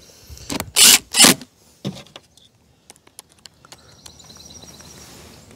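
DeWalt cordless drill-driver running in two short bursts about a second in, driving a screw into the generator's plastic side cover, followed by a few light clicks.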